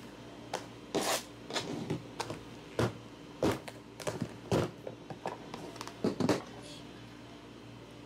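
Clip-lid plastic food container being handled and unclipped: a string of sharp plastic clicks and snaps, the loudest pair just after six seconds, over a steady low hum.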